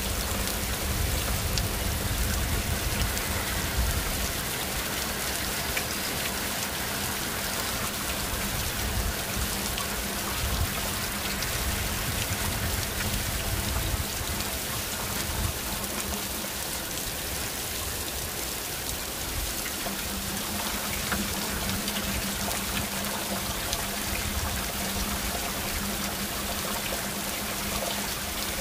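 Heavy rain pouring down steadily, an even hiss, heard through an open window, with a low rumble coming and going underneath.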